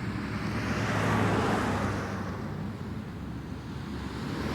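Road traffic: vehicles passing, their noise swelling about a second in, fading, then building again near the end.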